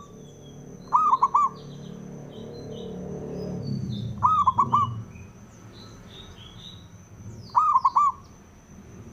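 Zebra dove (perkutut) cooing: three calls about three seconds apart, each a quick run of three arched notes. Faint chirps of small birds and a thin steady high tone sound behind it.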